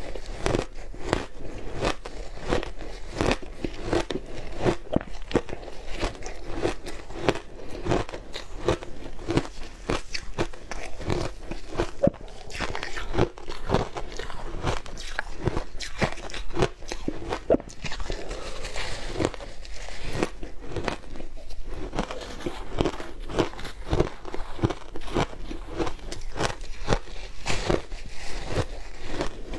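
Shaved ice being bitten and chewed close to the microphone: a dense run of crisp crunches and crackles, several a second.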